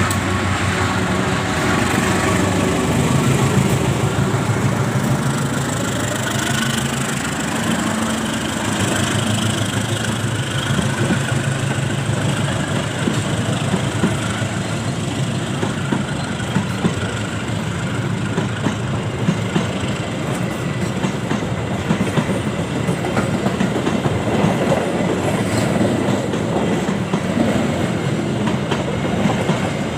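Train of railway ballast wagons rolling on track, wheels clacking over rail joints in a steady rhythm. A diesel locomotive engine hums under it for about the first ten seconds, then fades, leaving the wheel clacks.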